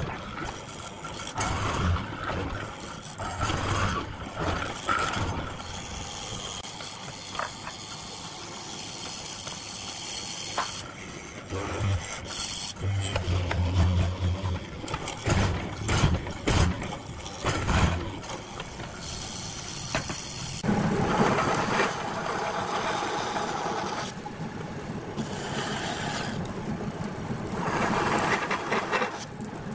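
Mortising machine's spinning bit boring into a hardwood chair-leg blank, louder in spells as the bit is fed into the wood and eased back. About two-thirds of the way in the sound changes to a bandsaw cutting into the end of a wooden rail.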